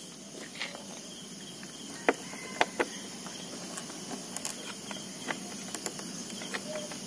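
A few sharp clicks and taps from hands handling plastic and wiring at a scooter's rear number plate and mudguard, the strongest three together about two to three seconds in, over a steady high-pitched background hiss.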